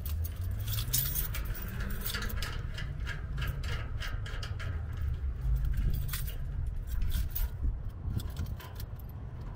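Metal clinking and rattling: a lock being fitted back onto the jet ski trailer's hitch coupler, with many short sharp clicks, over a low steady rumble.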